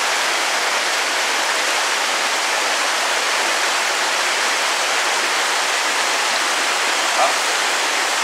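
Small waterfall on a mountain stream pouring into a rock pool: a steady, even rush of splashing water.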